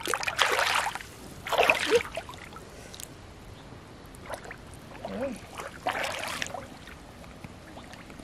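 Hands swishing and splashing through shallow water over a muddy bottom, in three short bursts: near the start, at about two seconds, and again around six seconds.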